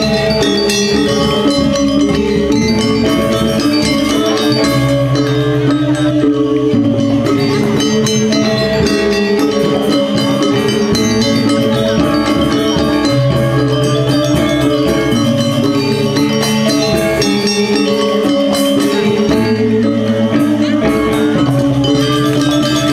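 Balinese gamelan gong kebyar playing dance accompaniment: bronze metallophones in a fast, dense stream of ringing notes, with deeper sustained notes coming in and out every few seconds.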